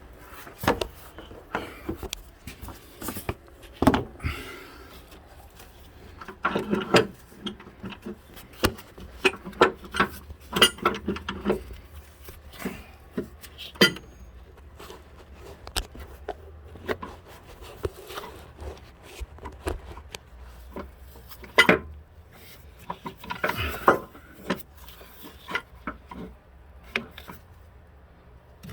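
Irregular metallic clinks and knocks of hand tools against bolts and engine-mount hardware, with a few short scraping rubs.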